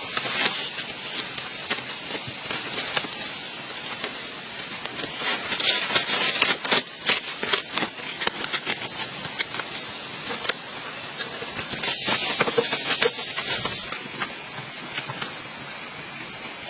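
Close handling sounds of vine being wound and tied around bamboo posts and palm-leaf wall panels: irregular rustling and crackling, busiest a few seconds in and again near the end, over a steady hiss.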